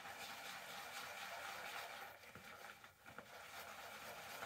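Shaving brush swirling and scrubbing wet soap lather, a soft continuous squishy scrubbing hiss with brief pauses.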